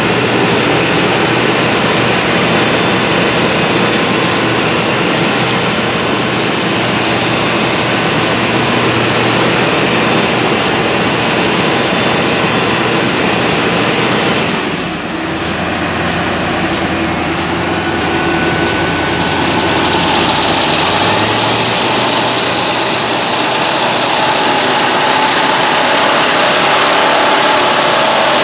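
Duomatic railway track-tamping machine running, a steady diesel engine and hydraulic noise. A fast regular ticking of about two to three ticks a second runs over it and stops about 20 seconds in, and the engine note shifts lower soon after.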